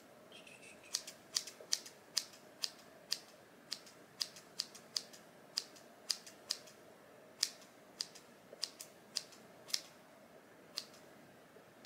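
Scissors snipping through the human-hair bangs of a wig to cut a fringe: about two dozen short, crisp snips at an uneven pace, starting about a second in.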